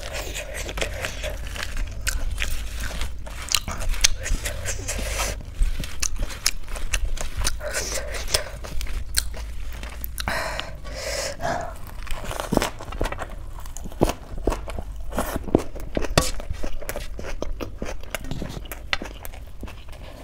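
Close-miked eating sounds: crisp crunching bites into a lettuce-wrapped mouthful of food and wet chewing, full of sharp irregular clicks and lip smacks.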